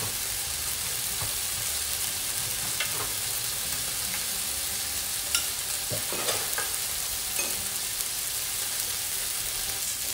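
Lamb chops and asparagus sizzling on a hot tabletop grill plate, a steady hiss. A few light clicks of metal tongs come about halfway through.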